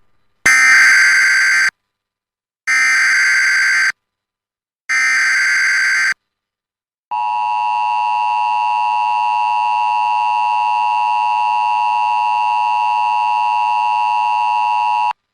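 Emergency Alert System broadcast tones signalling a flash flood warning. First come three short screeching bursts of SAME header data, about a second apart. Then the steady two-tone EAS attention signal sounds for about eight seconds.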